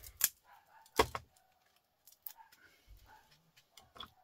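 Small scrap transformers clinking and knocking against each other and the workbench as they are handled, a handful of sharp metallic clicks with the loudest about a second in.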